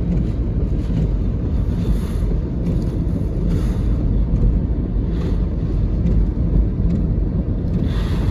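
Typhoon wind gusting hard and buffeting the microphone, a steady low rumble with rushing gusts that swell and fade every second or so.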